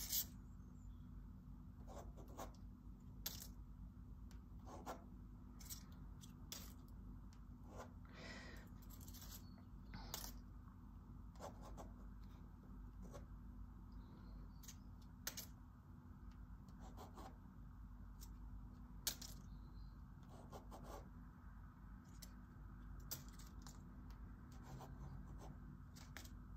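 Black marker tapping and scratching on sketchbook paper in irregular short strokes, with one longer scratchy stroke about eight seconds in. Faint, over a low steady room hum.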